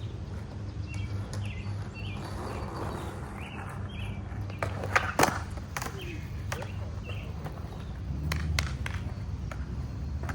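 Skateboard rolling with a steady low rumble, and two sharp clacks of the board about five seconds in, followed by a few lighter knocks.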